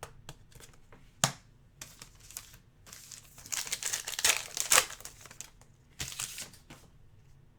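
Crinkling and tearing of a foil trading-card pack wrapper as a pack is opened and the cards are handled, with a sharp snap about a second in and the loudest crinkling between about three and five seconds in.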